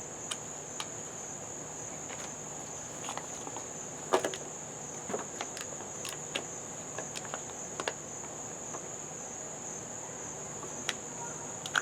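Steady high-pitched chorus of crickets, with scattered light clicks and knocks from handling, the loudest about four seconds in.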